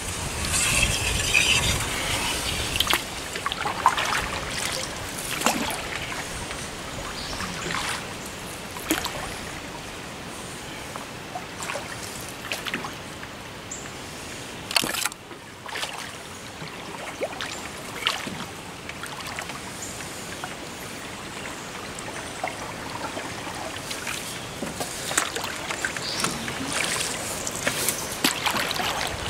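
Canoe paddle working the water: swishing strokes with water trickling and dripping off the blade, and short sharp knocks scattered through, the strongest near the start and one about halfway.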